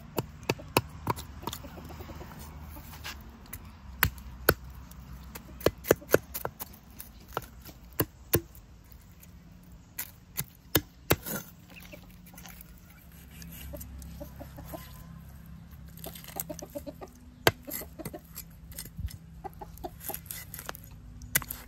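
Chickens clucking, with sharp irregular knocks.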